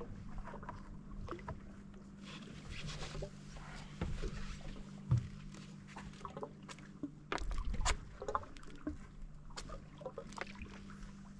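Steady low hum of an electric trolling motor holding the boat in place on anchor mode, with scattered light clicks and knocks from fishing gear being handled on the boat.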